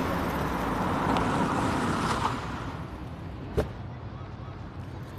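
A Maserati saloon pulling up and stopping: engine and tyre noise that dies away after about two and a half seconds. It is followed by a single sharp click about three and a half seconds in.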